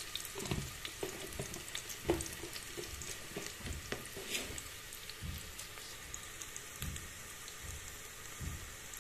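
Tadka of chopped onion, garlic and cumin frying in hot oil in an aluminium pressure cooker: a steady sizzle with small crackles. It is stirred now and then with a wooden spoon, giving soft scraping strokes.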